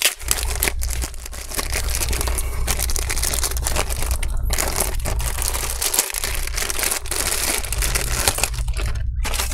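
Clear plastic packaging bag crinkling and rustling as a new laptop battery is handled and slid out of it, with brief pauses about four and a half seconds in and near the end.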